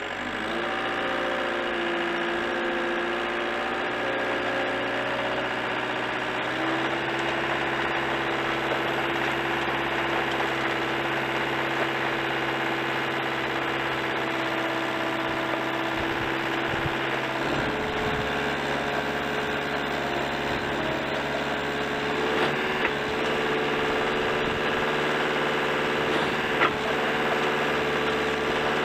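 Caterpillar compact track loader's diesel engine running steadily, with its hydraulics driving a snow-clearing attachment down into a snowbank. The drone shifts in pitch about six seconds in and again past halfway, with a couple of faint knocks in the last third.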